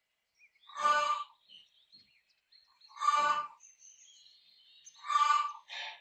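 Rooster giving short agitated calls, about one every two seconds, the last two coming close together. Small birds chirp faintly between the calls.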